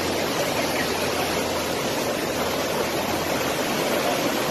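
Fast-flowing muddy river in flood: a steady rush of water.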